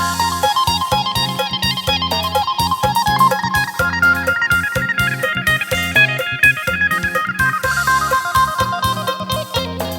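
Electric phin, the Isan plucked lute, playing a fast lam sing melody of quick, short plucked notes over a pulsing low bass.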